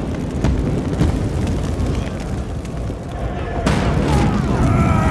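Film sound of a fire: flames rumbling steadily, a sudden loud burst of flame about three and a half seconds in, then a man screaming.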